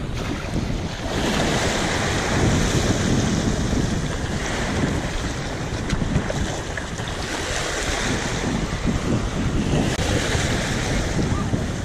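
Small waves washing over shallow water and sandy shore, swelling and falling back every few seconds, with wind rumbling on the microphone.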